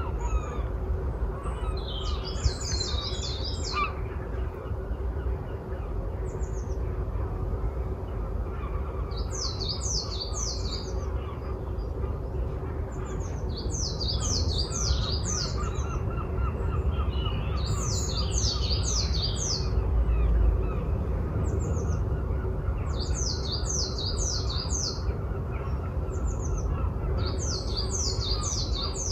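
Woodland birdsong: a small songbird repeats a short, quick phrase of high notes every few seconds, with other bird calls among them. A steady low rumble runs underneath.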